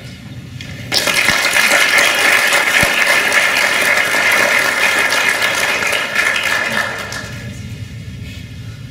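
Audience and panel applauding, starting abruptly about a second in and dying away by about seven seconds in.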